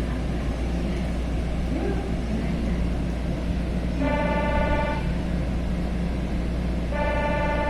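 A pitched, horn-like tone sounds for about a second, then starts again near the end and is held, over a steady low rumble of a train at a station platform.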